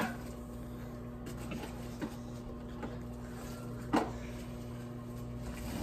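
A steady low electrical hum with a few soft knocks or clicks, the clearest about four seconds in.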